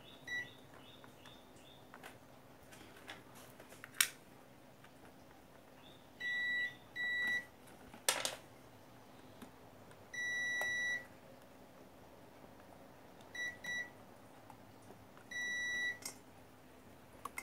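A digital multimeter's continuity beeper sounding in about seven short, steady, high beeps of varying length as its test probes are touched across points on an amplifier circuit board; each beep marks a connected, low-resistance path between the probed points. Two sharp clicks, about 4 and 8 seconds in, are louder than the beeps.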